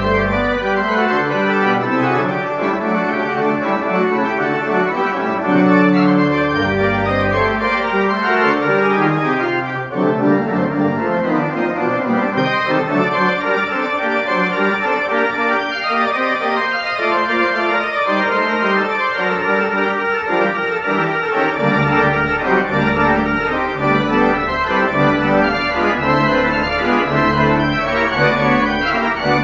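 Restored church pipe organ played in a recital: many held notes in several voices at once. Deep pedal notes sound at the start and about seven seconds in, then are held through the last third, with a brief break about ten seconds in.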